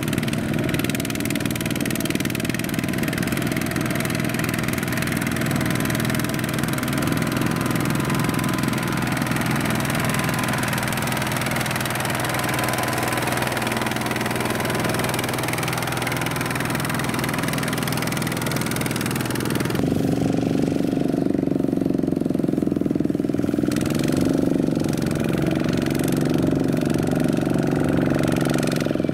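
Single-cylinder diesel engine of a Kubota two-wheel walking tractor running steadily under load as it hauls a trailer of rice sacks through deep paddy mud. About two-thirds of the way in the hiss above it drops away and the engine note sounds fuller.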